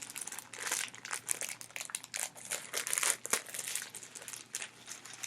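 Packaging of a sticker pack crinkling and crackling in irregular bursts as it is handled and opened by hand.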